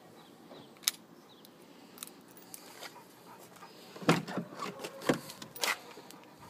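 Car keys jangling and a key working the driver's door lock of a Volkswagen Golf. One sharp click comes about a second in. From about four seconds in, a run of clicks and clunks follows as the lock turns and the door latch is pulled open.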